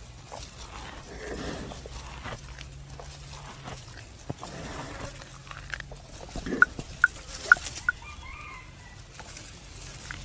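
A resting buffalo chewing its cud, soft and irregular, with a chicken clucking four times in quick succession about two-thirds of the way through.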